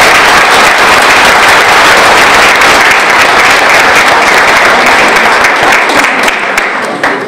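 An audience applauding, a loud, steady mass of clapping that dies away near the end.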